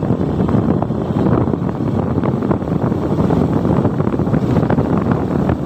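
Wind buffeting the microphone of a moving vehicle, a steady rough rumble with road and vehicle noise underneath.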